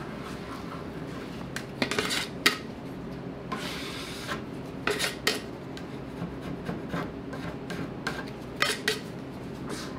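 Metal scraper pushed across a wood-veneer top, scraping off thick chemical stripper and softened old finish in a series of short strokes. The loudest strokes come about two seconds in, around five seconds and near nine seconds.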